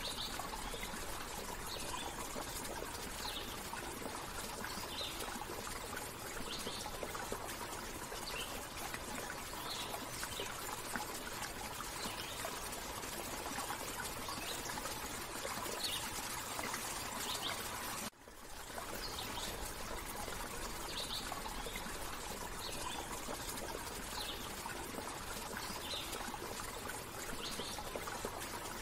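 Steady running water, like a trickling stream, with short high bird chirps every second or so. The sound cuts out briefly about eighteen seconds in and then resumes.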